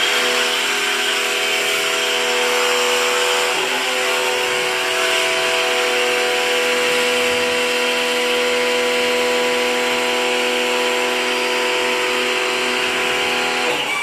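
American Micronic AMI-PW1-1500WDx electric pressure washer running steadily with a constant hum and the hiss of its spray while foaming soap through the bottle attachment. It starts abruptly and cuts off near the end.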